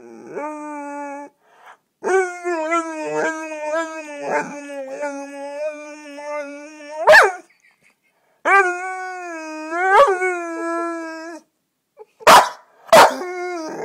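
A Cane Corso 'talking': a short call, then two long drawn-out vocal calls whose pitch wavers up and down, each ending in a sharp yap. Two short barks follow near the end.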